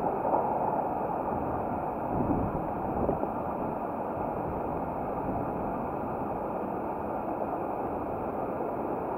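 Steady wind rush on the microphone of a moving bicycle, mixed with the rolling noise of its tyres on a paved cycle path, with slight bumps about two and three seconds in.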